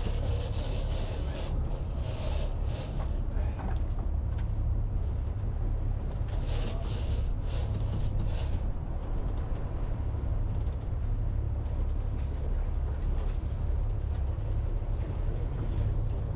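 Offshore fishing boat's engine running with a steady low drone, with two stretches of louder hiss over it, in the first few seconds and again about halfway through.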